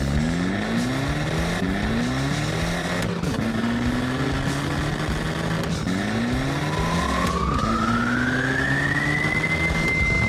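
Cartoon sound effects of a monster truck engine revving up over and over. Past the middle a whistle rises in pitch and then holds steady.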